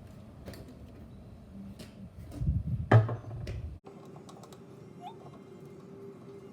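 Light clicks and low rumbling handling noise, with one sharp, loud knock about three seconds in.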